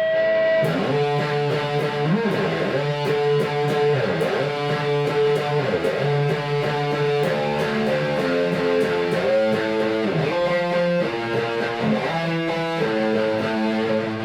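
Electric guitar played through a Diezel VH4-2 distortion pedal on its second channel, with the presence knob at half and the deep knob off: a distorted riff of ringing chords that change every second or so under steady picking.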